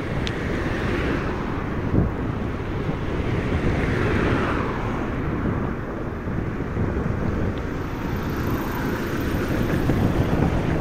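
Wind rushing over the microphone of a camera riding on a moving bicycle: a steady low rumble with two swells of higher hiss, and a single knock about two seconds in.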